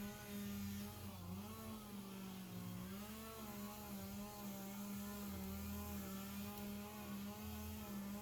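A steady low hum with a stack of overtones, its pitch wavering slightly now and then.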